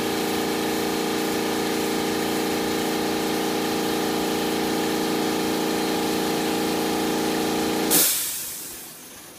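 Small air compressor running steadily, then cutting out near the end with a sharp hiss of released air that fades over about a second: the compressor has reached its cut-out pressure and the unloader vents.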